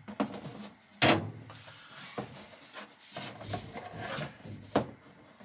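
Thick black battery cables being handled and pushed into place, rubbing and knocking against the fittings, with several separate sharp knocks and clicks, the loudest about a second in.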